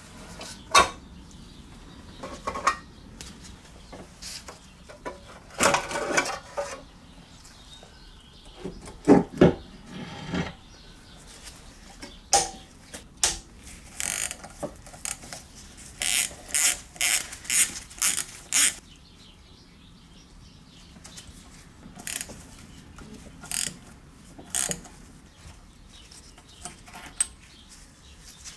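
Hand tools working on a Briggs & Stratton 3 HP engine as it is being dismantled: scattered clicks of a socket ratchet and clinks of a wrench and metal parts. There are heavier knocks about a third of the way in and a quick run of even clicks about two-thirds through.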